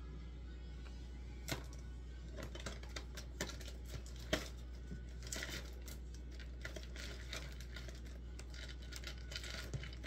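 Small scratches, taps and clicks of hand painting work: a brush working on a stretched canvas, with one sharper click about four seconds in. A steady low hum runs underneath.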